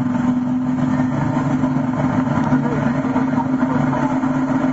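Chevrolet pickup's Duramax turbo-diesel V8 idling steadily, a constant-pitched drone with no revving.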